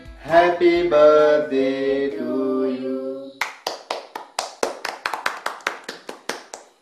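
Voices singing a slow tune, then about three and a half seconds in, steady rhythmic hand clapping, about five or six claps a second, that fades away near the end.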